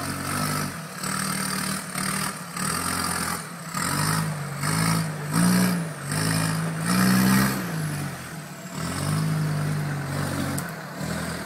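Off-road 4x4's engine revving in short repeated surges, its pitch rising and falling about once a second as the driver works the throttle to crawl the vehicle over steep, rough ground.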